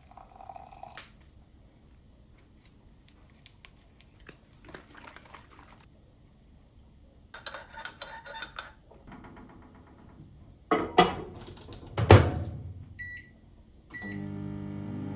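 Kitchen handling sounds, scattered clicks and clatter with a loud knock about twelve seconds in. Then come two short keypad beeps from a microwave oven, and it starts running with a steady hum near the end.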